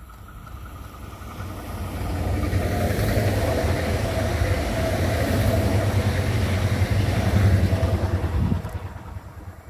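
Electric multiple-unit passenger train passing close by: wheels on the rails rumble under a steady whine. The sound builds over the first two seconds, holds, and drops off sharply near the end as the last car goes by.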